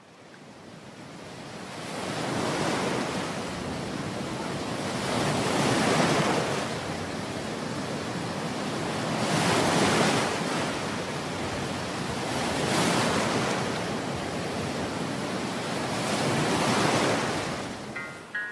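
Sea waves breaking and washing up a sandy beach, surging louder about every three to four seconds.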